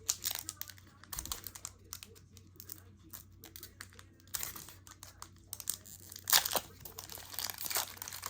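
Foil wrapper of a Pokémon booster pack crinkling and tearing as it is handled and opened, in irregular crackles that grow louder and busier from about six seconds in.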